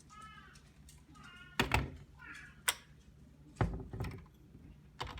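A cabinet door and its plastic magnetic child-safety latch knocking and clicking, several sharp knocks as the door is shut and caught by the latch. Short high-pitched cries sound a few times in the first half.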